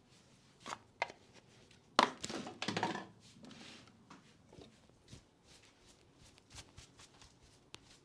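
Hands working on a head during a head massage: a few soft taps, then a sharp hit about two seconds in followed by about a second of fast rubbing and crackling, then scattered light taps.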